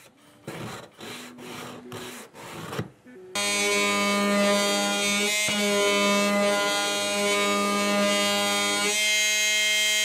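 Faint, irregular scratching strokes of sanding, then from about three seconds in a power sander running with a loud, steady, even-pitched buzz that thins shortly before the end.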